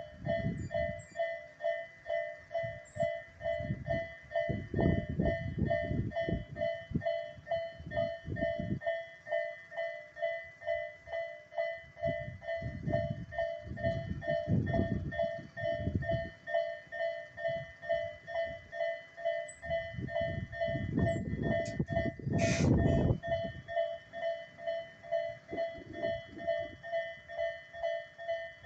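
Japanese level-crossing warning bell ringing steadily, about two strokes a second, while electric commuter trains of the Tobu Tojo Line pass in several stretches of rumbling and wheel clatter over the rail joints. About 22 seconds in there is a short, loud, harsh burst.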